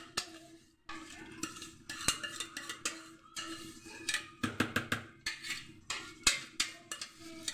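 A metal spoon or utensil clinking and scraping against a dish in irregular strokes while food is stirred and mixed with sauce.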